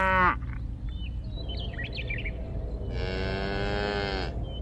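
A cow mooing: the end of one call at the start, then one long call about three seconds in that drops in pitch as it ends.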